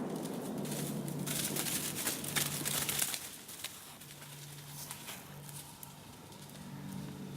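The tail of a muzzleloader rifle shot's echo fading out. It is followed by about three seconds of rustling and crackling clicks, which die down around four seconds in.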